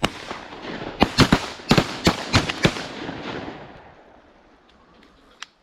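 A volley of shotgun fire from several hunters shooting at incoming ducks: about nine sharp shots, one at the start, then a rapid cluster over the next second and a half, with the reports echoing and dying away.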